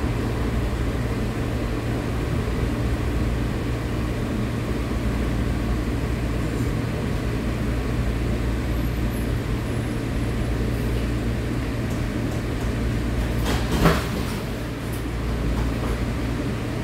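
Breda light rail car heard from inside the cabin: a steady low rumble and hum, with one sharp clunk late on.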